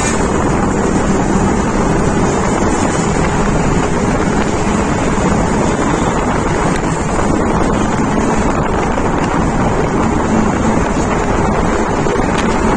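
Steady wind rushing over the microphone of a moving motorcycle, mixed with road and traffic noise.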